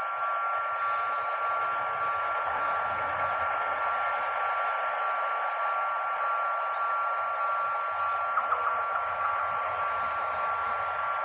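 Freight train hauled by a RENFE class 253 Traxx electric locomotive rolling past: a steady hiss with a steady high-pitched whine over it.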